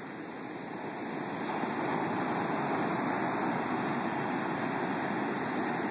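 Loud surf from a storm surge breaking along a long beach: a continuous wash of waves and foam that swells over the first couple of seconds, then holds steady.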